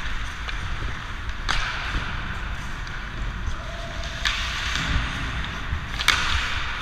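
Ice skate blades carving and scraping the ice: three long hissing scrapes, each beginning with a sharp bite of the edge, about a second and a half, four, and six seconds in, over a steady low rumble.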